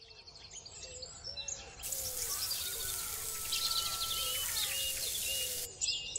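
Birds chirping and calling, many short chirps with a repeated short whistled note. A steady hiss comes in about two seconds in and stops shortly before the end.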